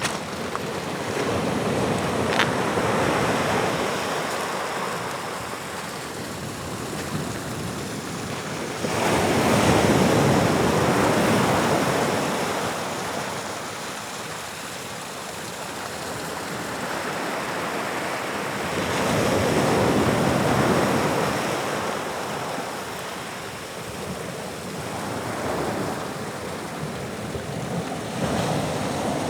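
Atlantic surf breaking on a rocky shore: a continuous wash of waves, swelling into two louder breakers about ten seconds apart, with some wind buffeting the microphone.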